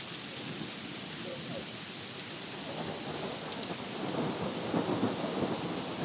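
Steady rain falling, an even hiss throughout, with a louder stretch of rough, irregular rumbling in the second half.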